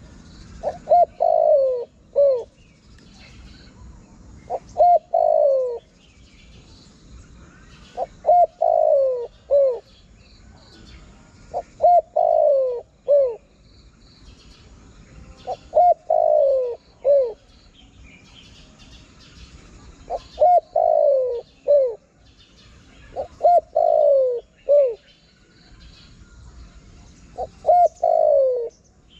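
Spotted dove cooing: a phrase of several short coos, each dropping in pitch, repeated about every four seconds, eight times. Faint chirps of small birds sound in between.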